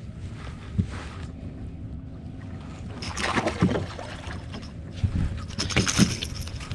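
Water splashing and knocks against a kayak as a hooked bass is brought in, over a steady rumble of wind on the microphone. The splashing and knocking start about three seconds in and come in irregular bursts.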